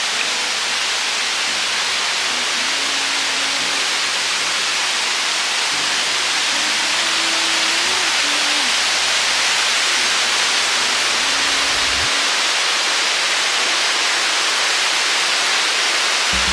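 Steady loud rushing of a waterfall. Soft low background-music notes sit under it for the first twelve seconds or so.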